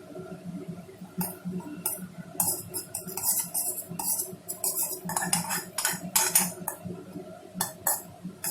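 Cumin seeds crackling and spluttering in hot oil and ghee in a kadai, with irregular bursts of sharp pops that come thickest in the middle.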